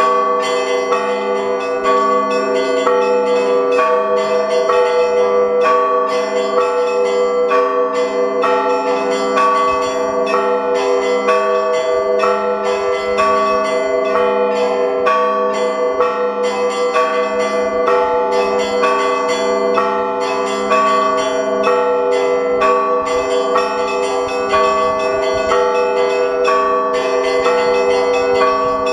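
Russian Orthodox church bells ringing continuously: smaller bells struck rapidly in a steady rhythm over the long, held ringing of deeper bells.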